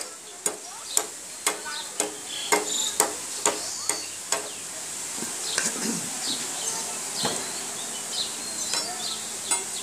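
Machete chopping into a green bamboo pole: sharp chops about twice a second for the first four seconds or so, then a few softer, scattered knocks.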